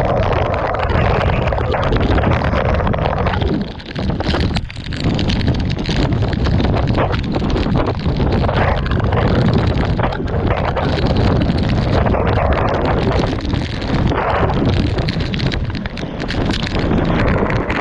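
Wind buffeting the microphone, loud and steady, easing briefly about four seconds in.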